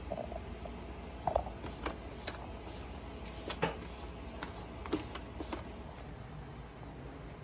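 Scattered light clicks and taps from handling, over a low steady hum.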